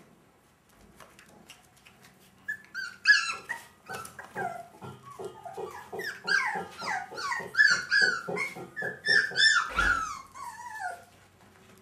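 Shetland sheepdog puppies whining and yelping in a rapid run of short, high cries that slide down in pitch, starting about two seconds in and dying away near the end. A single thump about ten seconds in.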